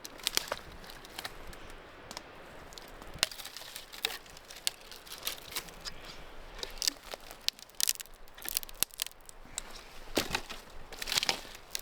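Branches of a fallen tree being snapped off by hand: a string of sharp, irregular cracks and snaps.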